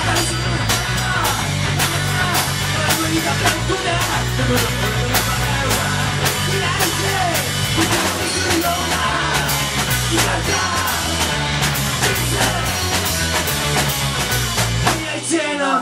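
Rock band music without singing: a driving drum-kit beat with electric guitar lines, an instrumental stretch of the song.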